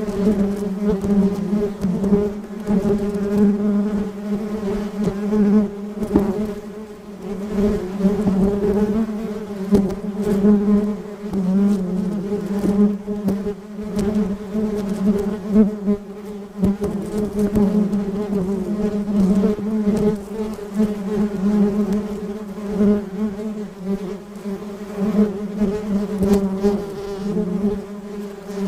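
Great potter wasp buzzing, a steady low hum that swells and fades in bouts as it works at its mud nest.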